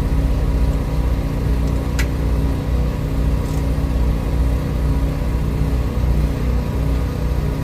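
Diesel truck engine idling steadily, with a brief sharp click about two seconds in.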